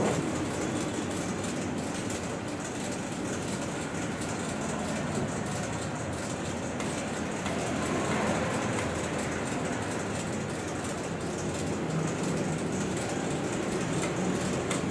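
Factory machinery and a long belt conveyor running in a large metal-roofed hall: a steady mechanical din with a fast fine rattle.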